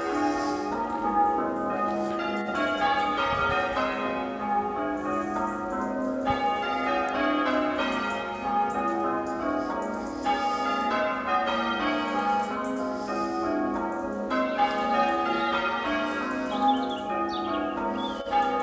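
Church bells ringing changes in a peal: a continuous, even stream of bell strikes, one bell after another, each note ringing on into the next.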